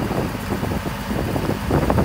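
Scania LS 111 truck's diesel engine running steadily at low revs as the truck moves slowly, getting a little louder near the end.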